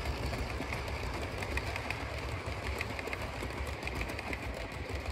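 Model train coaches rolling past on the track: a steady low rumble with a scatter of light clicks from the wheels running over the rail joints.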